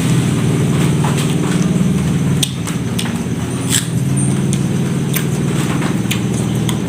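A steady low motor hum, a little quieter from about two and a half seconds in, with scattered crisp clicks and crunches from chewing raw vegetables.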